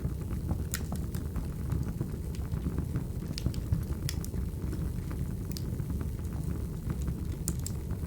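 Wood fire burning: a steady low rumble with irregular sharp crackles and pops from the burning logs.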